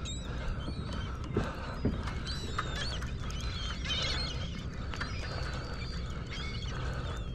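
A flock of birds calling, with many short overlapping chirps throughout, over a low steady rumble. There are a couple of light knocks about a second and a half and two seconds in.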